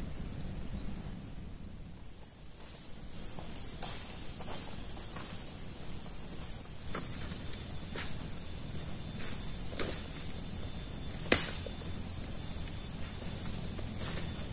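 Insects keep up a steady high-pitched drone. A handful of short sharp snaps or knocks are scattered through it, the loudest about eleven seconds in.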